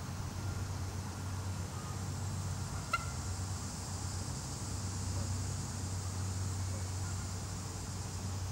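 A single short, sharp honk from a Canada goose about three seconds in, over a steady low background rumble.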